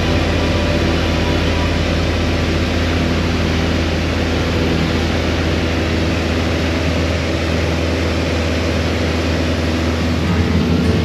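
Small airplane's engine and propeller droning steadily, heard from inside the cabin.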